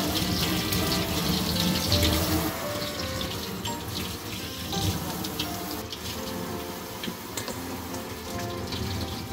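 Kitchen tap running steadily into a stainless steel sink as crab pieces are rinsed by hand under the stream, over background music.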